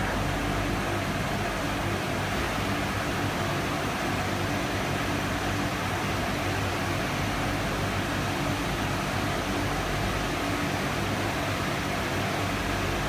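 Metal-cleaning machinery running steadily: an even hiss with a low hum underneath.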